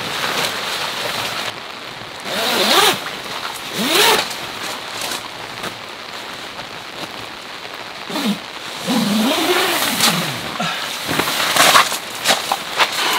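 Steady rain falling, with children's distant shouts and calls rising and falling a few times, and a flurry of sharp taps near the end.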